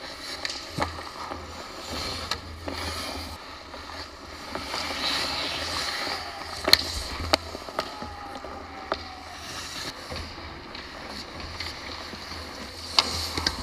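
Ice hockey play on the ice: skate blades scraping and carving, with a longer scrape about five seconds in, and several sharp clacks of sticks and puck. The loudest clack comes a little before halfway.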